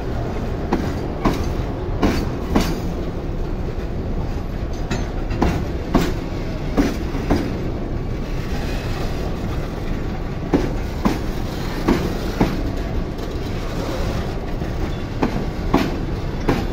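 Freight train of hopper wagons rolling slowly past, a steady rumble broken by wheel clacks over a rail joint: quick pairs of clacks, two pairs close together then a pause, repeating about every five seconds as each wagon's two bogies pass.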